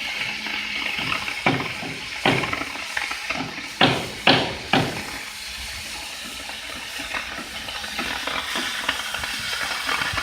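Plasma cutting torch of a portable CNC plasma cutter hissing steadily as it cuts stainless steel, with a few sharp knocks, the loudest three in quick succession about four seconds in.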